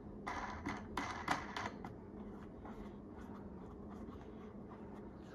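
Faint handling clicks and scrapes as a wing nut is turned on the centre screw and a vinyl record is settled on the cleaning machine's platter, busiest in the first second or so, then a few light ticks over a faint steady hum.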